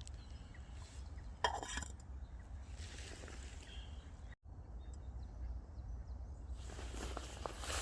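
Outdoor background noise: a steady low rumble with a brief rustle about one and a half seconds in, broken off suddenly a little past halfway and then resuming.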